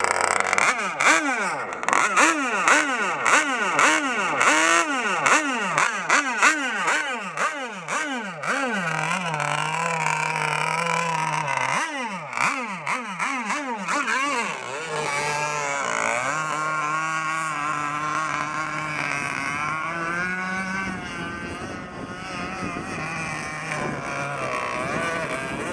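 Gas RC boat's small two-stroke engine revved in quick repeated blips, about two a second, dropping to a steady idle between runs of blips. From about fifteen seconds in it runs steadily, its pitch wavering slightly.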